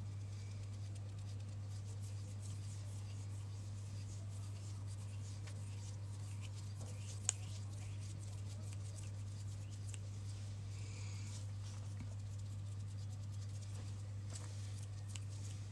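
Soft ASMR hand sounds close to the microphone, faint ticks and rustles of fingers moving, with one sharp click about seven seconds in, over a steady low hum.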